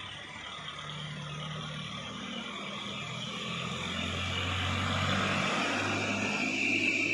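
Diesel dump trucks, a Toyota Dyna and a Hino 300, driving past close by on a narrow climb; their engines grow steadily louder, peaking about five seconds in as they pass.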